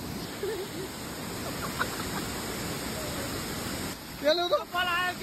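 Steady rush of water from a waterfall. A person's voice starts about four seconds in.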